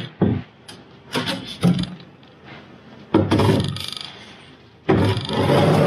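Wooden boards being handled in a fibreglass boat hull, knocking and scraping against each other and the hull in several separate bursts, with the longest and loudest scrape near the end.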